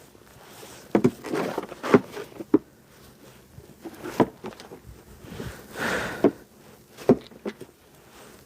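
Snow shovel scraping and knocking on pavement, a string of sharp knocks with a longer scrape about six seconds in.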